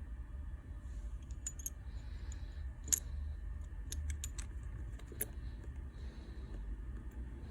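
Small sharp clicks and taps of hand tools on a phone's parts during a repair, scattered in a few quick clusters with the loudest about three seconds in, over a low steady hum.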